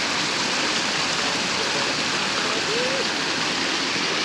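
Rushing water of a waterfall and its stream: a steady, even noise with no pauses.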